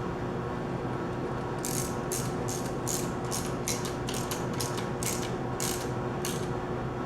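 Ratchet wrench with a 5/8-inch socket clicking in quick back-and-forth strokes as it tightens the impeller onto a pump's motor shaft. The run of clicks starts about two seconds in, at roughly three a second, and stops shortly before the end.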